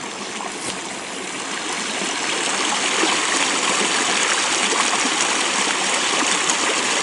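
Steady rushing hiss of flowing water, growing slightly louder over the first few seconds.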